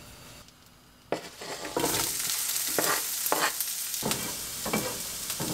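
Sliced onions sizzling in butter in a frying pan, stirred and scraped with a wooden spatula in repeated strokes. The first second or so is quiet, then the sizzling comes in loudly near two seconds in.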